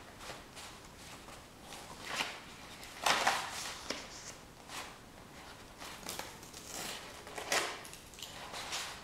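Soft, irregular rustles and light knocks of objects being handled, a few seconds apart, with the loudest about three seconds in and another near the end.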